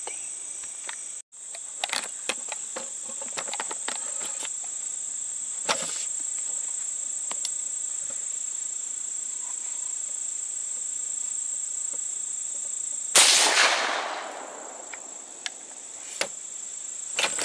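Steady high buzz of insects, broken about thirteen seconds in by one loud gunshot that echoes and fades over about a second: a hunter firing at a whitetail deer from a tree stand. A few knocks follow near the end as the camera is jostled.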